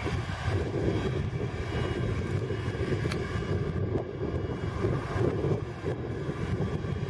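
Cessna Citation 560XL XLS+ twin turbofan engines running at low taxi power: a steady rumble with a faint, even whine over it.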